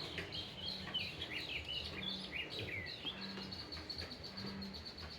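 Songbirds singing with varied chirps and sliding whistles, turning into a fast, high trill from about halfway. Underneath, a short deep note repeats about once a second, which the recordist takes for frogs calling.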